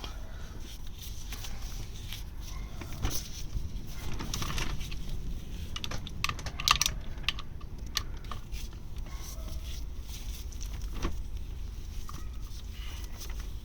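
Scattered light clicks and taps of hand tools on the ST1100's clutch pressure-plate bolts as they are loosened a little at a time against the clutch springs, with the sharpest cluster about halfway through.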